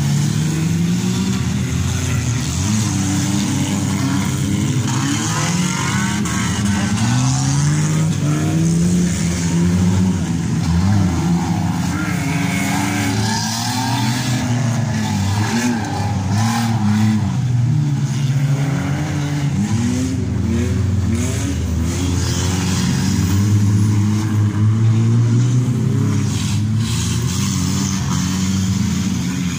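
Several demolition derby cars' engines revving, their pitch rising and falling over one another, with a few sharp knocks in the second half.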